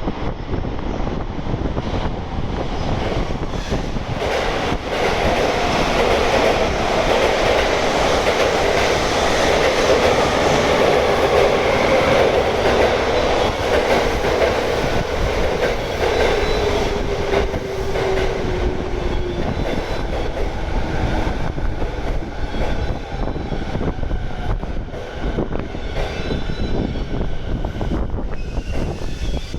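E217 series electric train running in and braking: rumble and clatter of wheels on rail, with a motor whine that falls in pitch as the train slows and dies away about two-thirds of the way through. The sound is loudest about a third of the way in and eases off afterwards.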